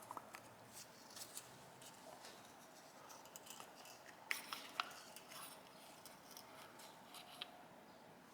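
Faint small clicks and light scraping of tools and small metal parts being handled while disassembling a motorcycle carburetor, with two sharper clicks about four and a half seconds in.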